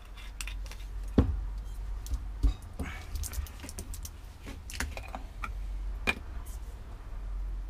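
Glass bottles and a small glass jar being handled and set down: an irregular run of light clicks and clinks, with two louder knocks about a second and two and a half seconds in, over a low steady rumble.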